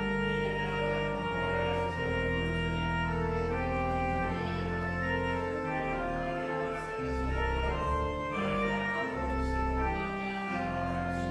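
Church organ playing the postlude after the dismissal: held chords that change every second or so over sustained bass notes.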